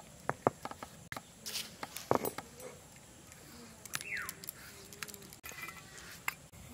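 Scattered light clicks and knocks from handling a stone grinding slab, its stone roller and steel bowls as freshly ground red chilli paste is scraped off the stone by hand. There is one sharper knock about two seconds in.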